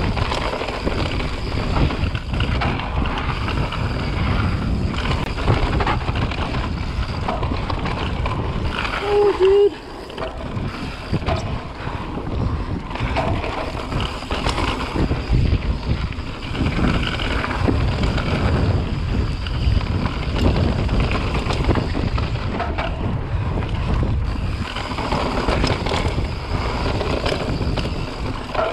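Mountain bike descending a dusty dirt singletrack at speed: wind buffeting the microphone over the rumble of tyres on dirt and a steady rattle from the bike. A brief squeak about nine seconds in.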